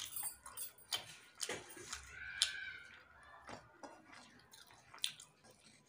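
Quiet chewing and soft mouth clicks of someone eating rice and vegetables by hand, with light sounds of fingers mixing rice on the plate.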